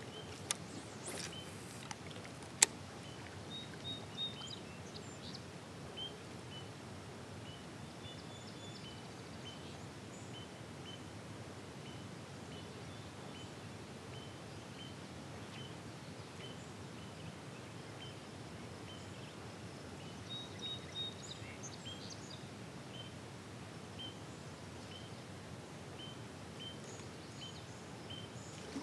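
Quiet open-lake ambience: a steady low hiss of wind and rippling water, with a small bird repeating one short, high chirp about once a second. Two sharp knocks sound in the first few seconds.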